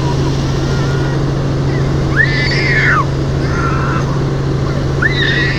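Helicopter cabin noise: a steady engine and rotor drone with a low hum. Two short, high-pitched sounds rise over it, about two and five seconds in.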